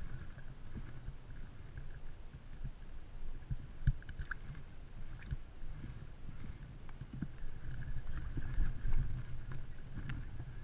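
Choppy rumble of wind and water noise on a kayak-mounted camera, with scattered knocks and clicks from handling the rod and reel. The sharpest knock comes about four seconds in.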